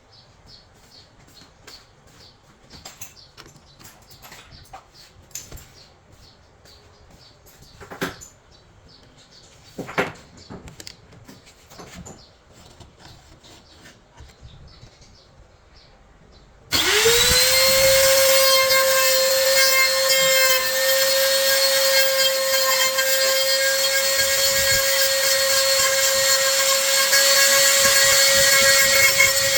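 Light knocks and clicks of wood and tools being handled, then, a little past halfway, an electric wood router switches on, spins up almost at once and runs steadily with a high whine.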